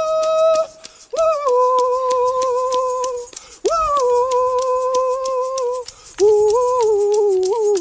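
A man's voice wailing in long, high held notes, each about two seconds long with a short break between, stepping lower from one note to the next. A steady quick clicking, about four clicks a second, runs underneath.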